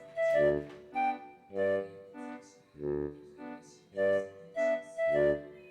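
Background music: keyboard chords played in a steady, bouncy rhythm.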